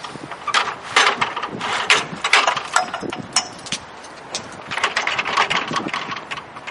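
40-foot extension ladder being run up a rung at a time, giving a rapid, irregular series of clicks and clanks. There is a brief lull a little past halfway, then the clicking starts again.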